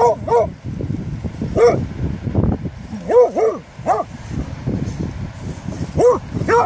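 Beagle barking at a hedgehog in front of it: about eight short yelping barks that rise and fall in pitch, in irregular groups of one to three.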